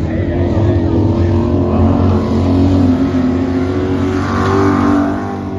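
Stripped-down dirt-track race car's engine running at high revs as it passes, its pitch rising and falling with the throttle. It is loudest around the middle and again shortly before the end, then drops away.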